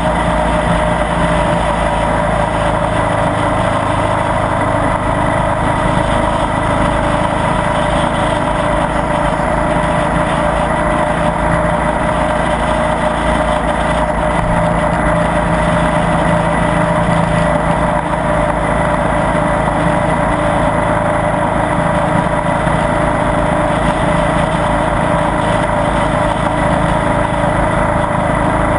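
Ducati Multistrada 1200 S's L-twin engine running steadily while the motorcycle cruises along the road, heard from on the bike.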